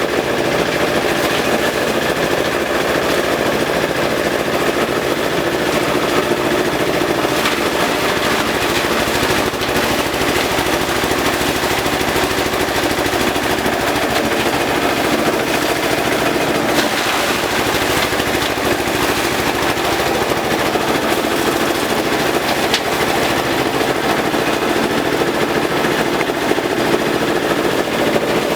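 Compost shredder machine running steadily while chopping elephant grass, a dense rapid clatter of blades striking stalks over the drone of the machine.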